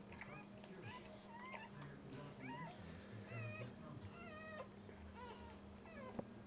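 Newborn Dogue de Bordeaux puppies crying in short, high squeaks that rise and fall, about two a second.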